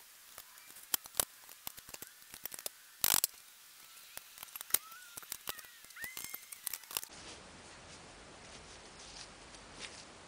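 Irregular sharp clicks and light taps, with one louder clatter about three seconds in and a few faint short squeaks. They stop about seven seconds in, leaving only a low steady background.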